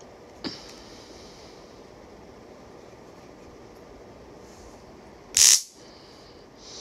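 Vipertek VTS-880 mini stun gun: a click about half a second in, then one brief, loud zap about five and a half seconds in.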